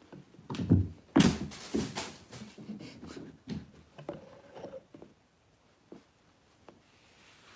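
Thin plastic bags rustling and crinkling on a wooden floor in a few quick bursts, loudest about a second in, with light knocks as a kitten plays among them.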